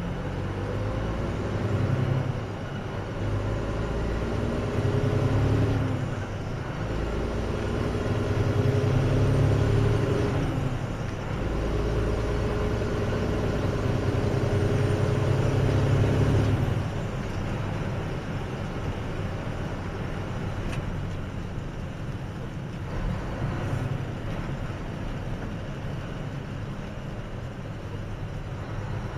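Mack dump truck's diesel engine heard from inside the cab, pulling up through the gears: its pitch climbs and drops back at each of three gear changes, then holds steadier at cruising speed in the second half.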